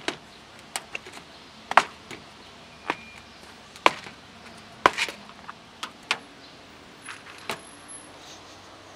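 Sharp plastic clicks and knocks, about a dozen spread irregularly with three loud ones in the middle, from a clear plastic food box of cat kibble as its snap-on lid is handled and the box is set down on concrete.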